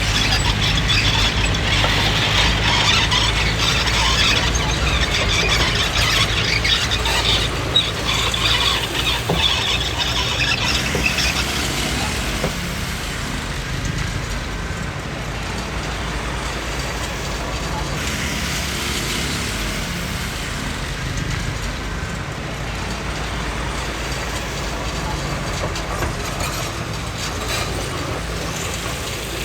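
Komatsu D20P crawler bulldozer working: its diesel engine runs steadily under a harsh, high metallic noise from the machine that is strongest over the first ten seconds or so and then eases.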